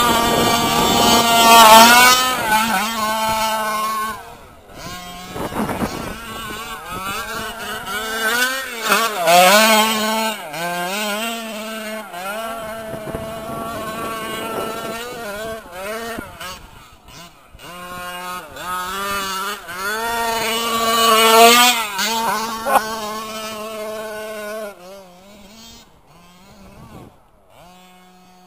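Losi 5IVE-T 1/5-scale RC truck's petrol two-stroke engine revving up and down over and over as it is driven. It is loud and close at first, drops back and quieter after about four seconds, with louder bursts of revving around nine and twenty seconds in, and fades near the end.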